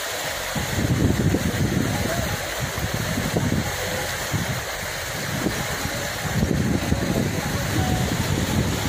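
Floodwater rushing steadily, with wind gusting across the microphone in repeated low rumbling surges.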